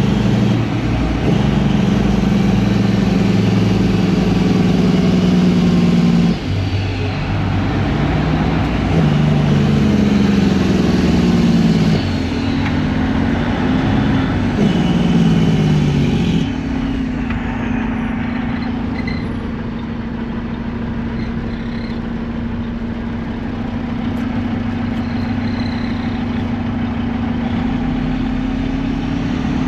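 A vehicle engine running, its pitch rising and falling several times over the first half, then holding steady from about halfway through.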